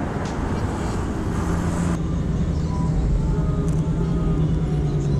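City street traffic: a car driving past close by, its engine giving a steady low hum that dips slightly in pitch near the end, over the general rush of traffic.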